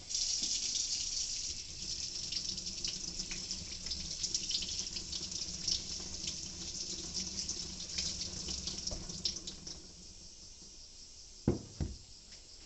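Steel blade of a Japanese eel knife being ground on a wet natural whetstone: a continuous high scraping hiss for about ten seconds, then it stops and two knocks follow near the end.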